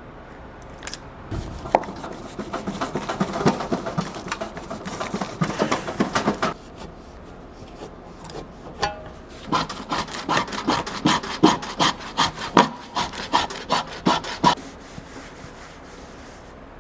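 Repeated scraping and rubbing as the old top foam seal is pulled and scraped off an air cart's meter housing. It comes in two spells of several seconds each, with a short pause between.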